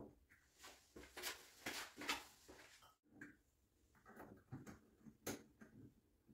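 Faint, irregular clicks and light scrapes of a small metal hand tool working on a shower wall tap's spindle fitting.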